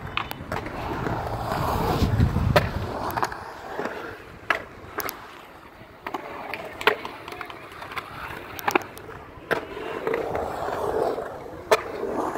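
Skateboard rolling and carving through a concrete bowl: the urethane wheels' rolling roar swells and fades as the rider pumps the walls, loudest and deepest a couple of seconds in, with several sharp clacks scattered through it.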